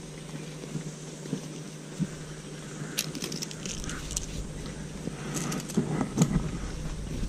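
Close handling noise as a cloth bag holding a caught fish is gripped and moved among twigs and wet undergrowth: rustling and crackling, in a burst about three seconds in and again from about five to six and a half seconds in, over a steady low hum.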